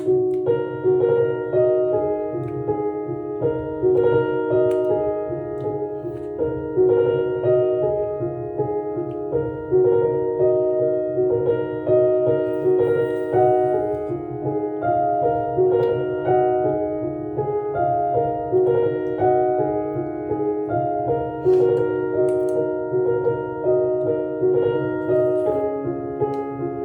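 Background piano music: a gentle, steady flow of sustained notes.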